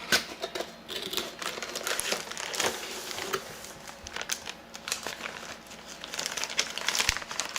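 A craft kit's box being opened and its plastic-wrapped contents handled: irregular crinkling and crackling of packaging with small clicks.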